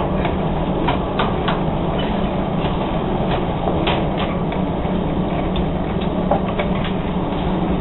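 Steady rushing noise with a constant low hum, typical of a forge's air blower running, with a few light, irregular clicks and taps over it.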